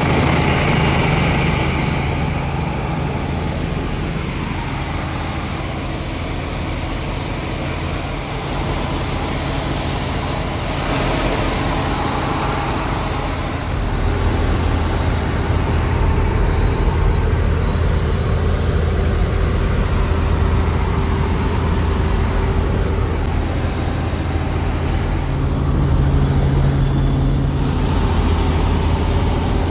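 Helicopter engine and rotor running steadily, a continuous drone with a high whine held throughout and a rise of hiss midway.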